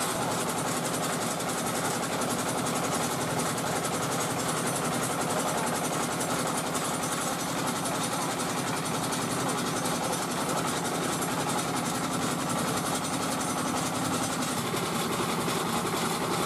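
Dong Feng single-cylinder diesel engine running steadily with a fast, even chugging while it belt-drives a rice-puffing extruder under load, pushing out a continuous stick of puffed rice.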